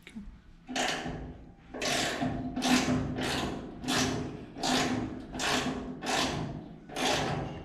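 Ratchet wrench with a 1/2-inch socket worked back and forth on the door hinge bolts of a 1973 Ford F100, in repeated strokes a little more than one a second.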